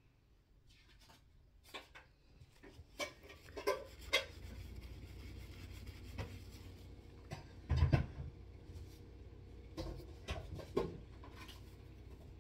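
Rubbing on a straight razor blade as it is hand-polished, with scattered small handling clicks and a louder low knock about eight seconds in.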